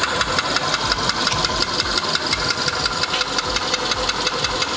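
Skoda Fabia's 1.6-litre CFNA four-cylinder petrol engine idling evenly while warm, with a rapid, regular knock. The mechanic takes it for piston knock.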